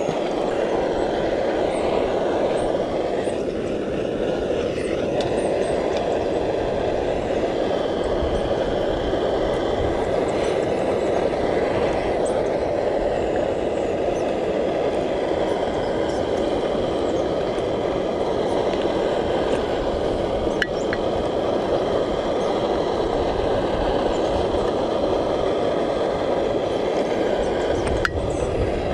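Small gas canister backpacking stove burning under a pan of morel mushrooms frying in butter: a steady rushing hiss.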